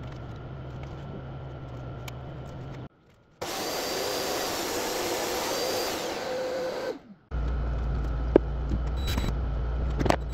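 Woodworking power tools heard in short edited snippets. A steady low hum is followed by a short break, then about three and a half seconds of a louder power tool running, which stops near the 7-second mark. After another break comes a low hum with scattered clicks.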